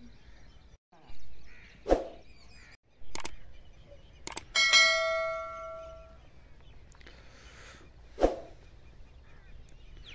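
Edited intro sound effects: a sharp hit about two seconds in, a bell-like ding a little before the middle that rings out for about a second and a half, and another sharp hit near the end, with brief drops to silence between cuts.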